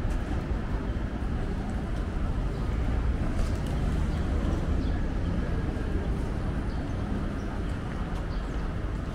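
Steady city street noise: a low, continuous traffic rumble with a few faint clicks.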